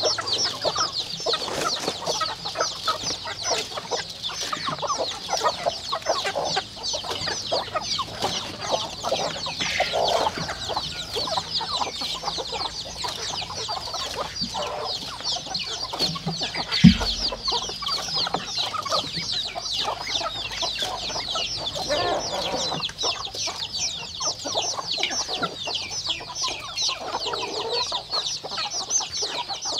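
Flock of chickens clucking around a feed basin, over a constant dense high chirping. A single sharp knock about 17 seconds in.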